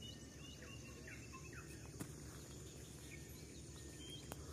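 Faint forest birds calling: many short chirps and downward-sliding whistles, over a steady high insect drone. Two faint clicks stand out, about two seconds in and near the end.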